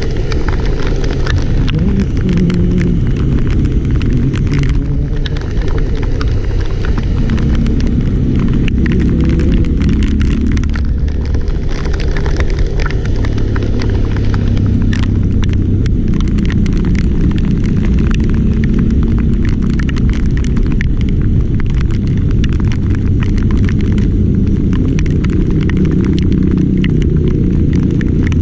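Loud, steady low rumble of a running vehicle engine, its pitch shifting up and down, with many scattered light ticks over it.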